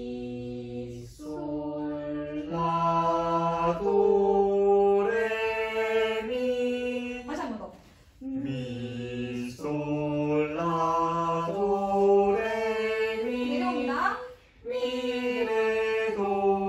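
Voices singing a pentatonic solfège exercise in unison, mi-sol-la-do-re-mi up and back down, on slow held notes. The phrase is sung about three times with short breaks for breath between.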